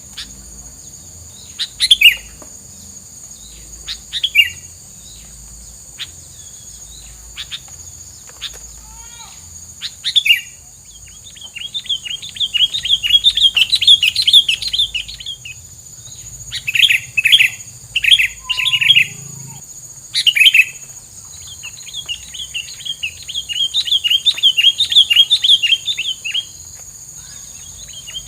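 A caged songbird sold as a 'tilang' in full song: single sharp chirps every couple of seconds, then long, fast, loud trilled phrases near the middle and again near the end. A steady high-pitched whine runs underneath.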